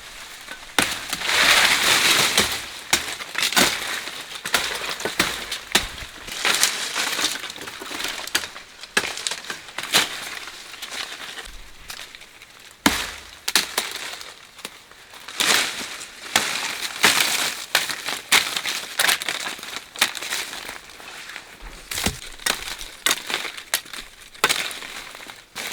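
Crisp crunching and snapping of plant material being cut and handled, in irregular bursts with sharp cracks.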